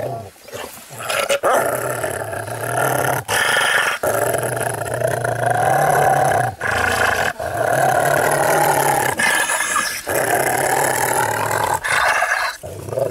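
Angry dog growling and snarling in long rough stretches, broken by short pauses.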